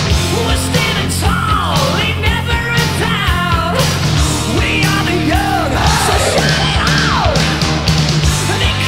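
Loud punk rock music with a steady beat and yelled vocals.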